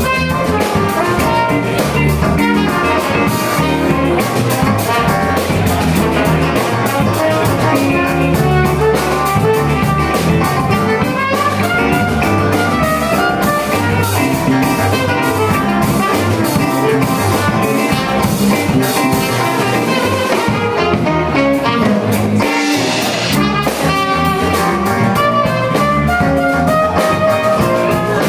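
Live band playing an instrumental funk tune, with a horn section, guitar and drum kit.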